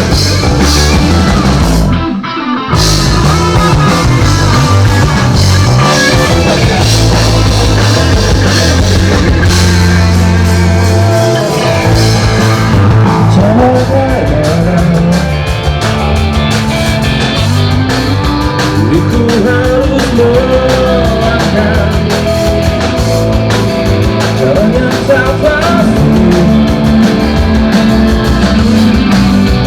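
Rock band playing live at a sound check: drums, bass and electric guitar together, with a short break about two seconds in before the band comes back in.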